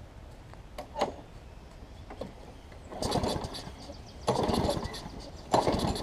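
Briggs & Stratton Quantum engine on a push mower being pull-started: three pulls of the recoil starter rope in the second half, each cranking the engine over without it catching. A single knock about a second in.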